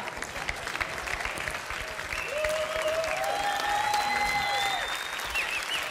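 Audience applauding, steady clapping from a large seated crowd, with a held tone or voice rising over it for a few seconds in the middle.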